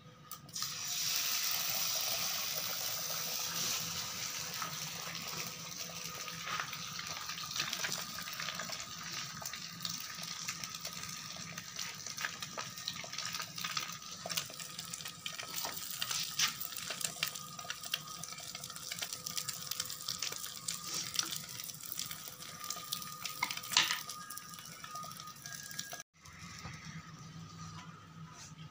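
An egg sizzling as it fries on a hot black griddle: a loud hiss with many sharp popping crackles. It starts suddenly about half a second in, eases slowly, and cuts off abruptly near the end.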